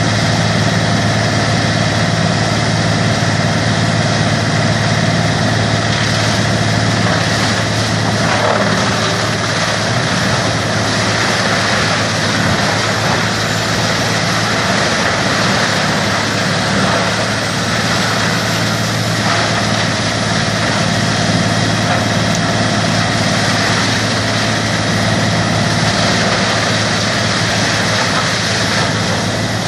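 A grinder machine running steadily: a constant low engine-like hum under a dense, even grinding noise.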